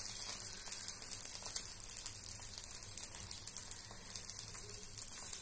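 Corn dosa batter sizzling on a hot cast-iron tawa: a steady hiss with many small crackling pops.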